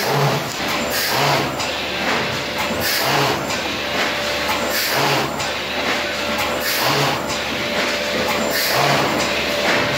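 Dupatech thermoforming machine running in a steady cycle, feeding plastic sheet through its heater. A low thump and a short hiss repeat about once a second over a steady machine hum.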